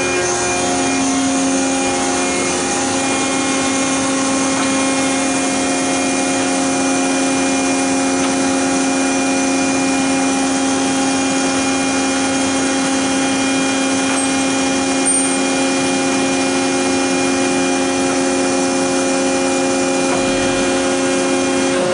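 Hydraulic power unit of a vertical tube expander, a 20 HP electric motor driving a Vickers pump, running steadily with a hum and several steady whining tones.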